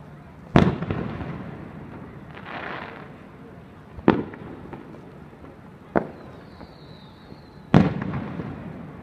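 Fireworks shells bursting overhead: four booms, the first about half a second in and the last near the end being loudest, each trailing off in a rumbling decay. A softer hiss comes between the first two, and a faint thin whistle comes before the last boom.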